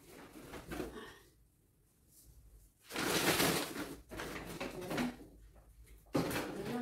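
Rustling and handling noises as a fabric blanket is bundled into plastic shopping bags. The loudest rustle comes about three seconds in, after a short quiet spell, and another sudden noise starts near the end.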